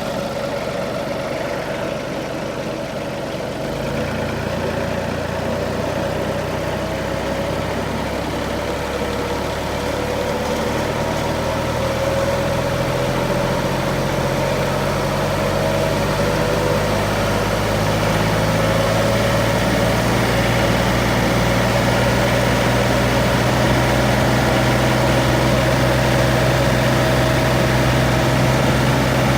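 John Deere 2032R compact tractor's three-cylinder diesel running steadily, driving a PTO wood chipper. A deeper note joins about four seconds in, and the sound grows louder in steps as the revs come up.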